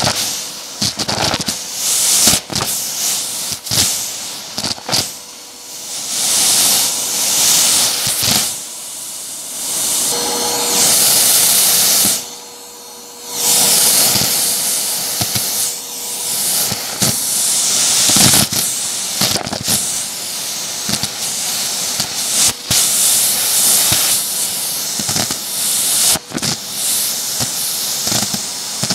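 Hoover vacuum's crevice tool sucking dry kidney beans off shag carpet: a loud, steady suction hiss with many sharp clicks and rattles as the beans are pulled in. The hiss drops away for about a second near the middle.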